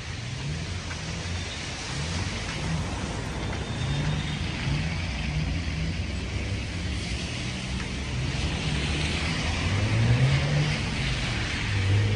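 Road traffic on a city street: a steady wash of car and tyre noise that swells as a vehicle passes, loudest a little past two-thirds of the way in.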